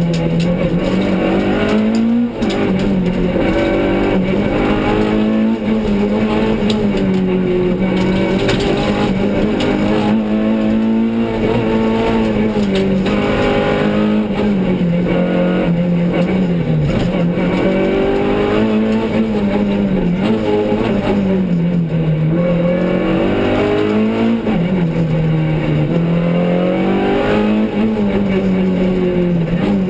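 Renault Clio Sport rally car's four-cylinder engine heard from inside the cabin, revving up and falling again and again as the driver accelerates, lifts and changes gear, with a sharp drop in revs about two seconds in. Road and tyre noise runs underneath.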